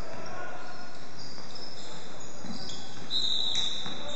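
Basketball game on a wooden court: the ball bouncing and shoes squeaking on the floor as players run, with a longer, high squeak near the end over a steady hiss.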